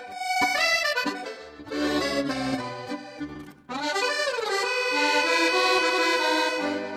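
Instrumental intro music: a melodic theme of sustained notes, with a brief break a little past halfway, then a held phrase that fades out near the end.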